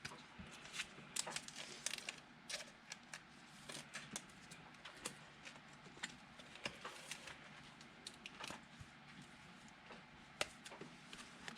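Trading cards being handled: faint, irregular clicks, slides and rustles of card stock against card stock and packaging.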